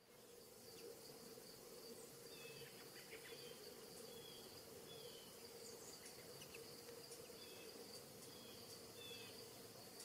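Faint steady high-pitched insect trill with a low steady hum beneath it and a few short, faint chirps scattered through.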